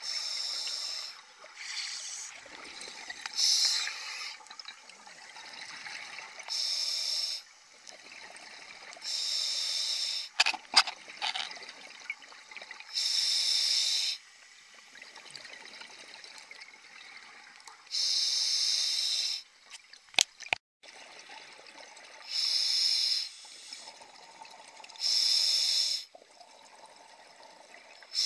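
Scuba regulator exhaust underwater: a burst of bubbles each time the diver breathes out, coming every three to four seconds, with fainter hiss between. There are a few sharp clicks about ten seconds in.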